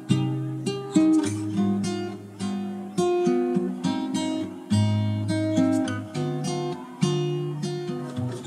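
Background music on acoustic guitar, with a strummed chord or plucked figure about once a second. It stops near the end.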